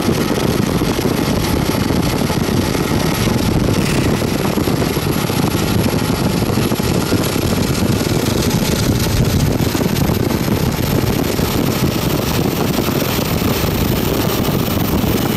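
Steady, loud rumble of Norfolk Southern diesel freight locomotives running past.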